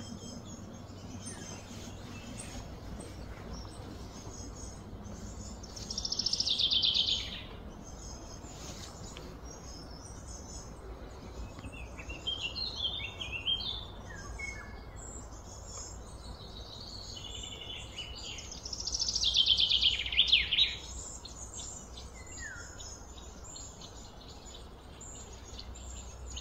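Outdoor birdsong: two loud, rapidly trilled calls falling in pitch, one about six seconds in and another about nineteen seconds in, with scattered short chirps between them and faint chirping throughout over a steady low hum of background noise.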